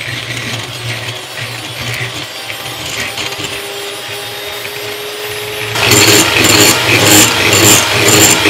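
Ufesa electric hand mixer running steadily, its beaters whipping cold cream in a glass bowl. About six seconds in it grows louder, with a rapid clatter over the motor hum, as the cream thickens toward stiff whipped cream.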